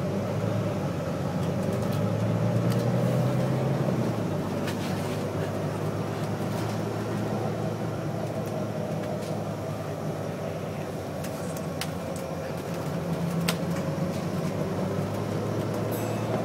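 London bus engine running with a steady low hum under road noise, heard from inside the passenger cabin, with a few faint clicks and rattles.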